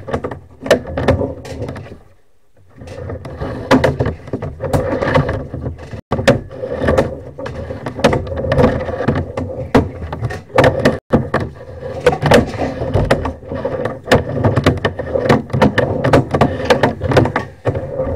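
Sewer inspection camera's push cable being pulled back out of the sewer pipe, clattering and scraping irregularly, with a brief lull about two seconds in.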